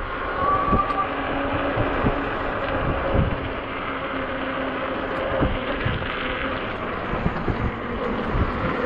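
Ecotric 20-inch e-bike under way: a steady motor hum over low wind rumble on the microphone, with scattered knocks from the road.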